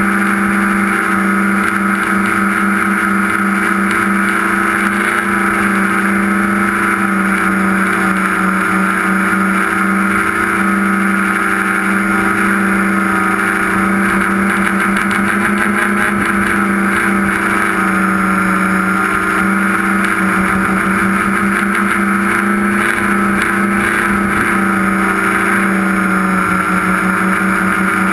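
A tricopter's electric motors and propellers running steadily, heard through the onboard camera's microphone. It is a loud, constant buzz: a low hum with a higher whine above it, wavering slightly in pitch as the motors adjust.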